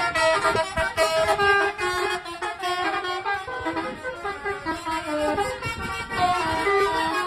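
Bus 'telolet' horns, multi-tone horns, playing quick tune-like runs of short notes that step up and down in pitch, several overlapping at once.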